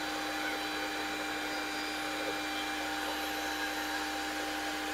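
Electric drill running steadily at part speed with its trigger taped down, spinning an engine valve in its chuck, with the hiss of an aerosol can of penetrating oil being sprayed.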